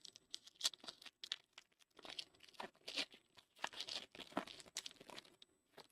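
A 2024 Panini Encore football card pack's wrapper being torn open and crinkled in the hands: a run of irregular crackles and rips.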